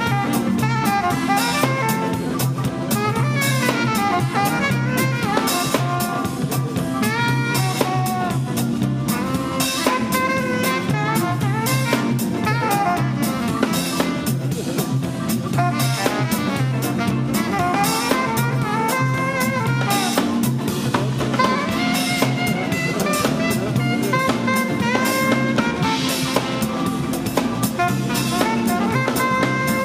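Live jazz-funk band playing: an alto saxophone solos over a repeating electric bass line and a drum kit groove.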